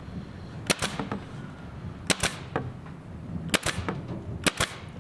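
Pneumatic framing nailer firing four times, each shot a sharp double crack, about a second and a half apart, as nails are driven into wooden blocking.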